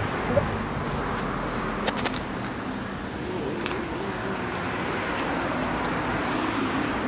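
City street traffic: a steady hum of passing cars and road noise, with a couple of sharp clicks about two seconds in.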